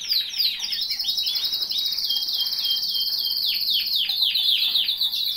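Domestic canary singing a long, high-pitched song of fast trills, with a rapid sustained roll in the middle and quick downward-sweeping notes near the end.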